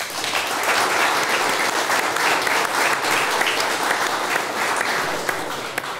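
Applause: hands clapping in a steady patter that eases off slightly near the end.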